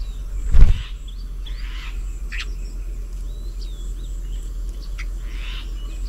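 Several birds giving short chirps and whistled calls, with a single loud thump about half a second in, over a steady low rumble.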